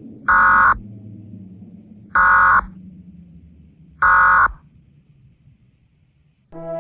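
Emergency Alert System end-of-message (EOM) data signal: three short, loud bursts of harsh digital tone about two seconds apart, marking the end of the alert. A low hum fades away underneath, and brass music comes in near the end.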